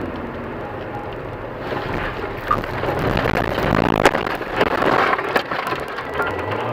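A car leaving a snowy road and crashing through roadside bushes and trees. A rush of scraping noise builds from about two seconds in, with a sharp bang about four seconds in and several more knocks and thumps as the car tumbles.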